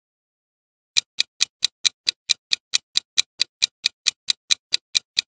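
Countdown-timer ticking sound effect for a quiz question: after about a second of silence, a regular clock-like tick starts, about four or five ticks a second.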